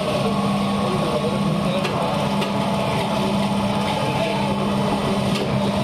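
Electric band saw running with a steady hum, its blade cutting through fish.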